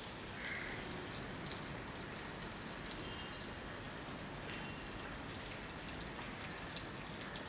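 Faint, steady hiss of monsoon rain with a few scattered light ticks.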